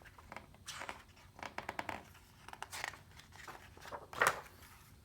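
Paper rustling and crinkling in several short bursts with a run of quick clicks, the loudest near the end: the pages of a picture book being handled and turned.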